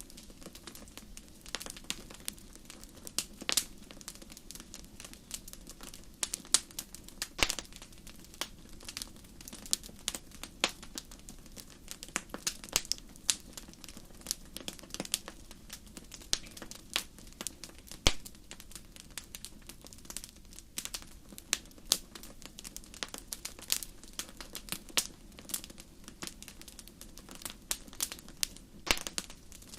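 Wood fire crackling: irregular sharp pops and snaps, several a second, over a soft steady low background.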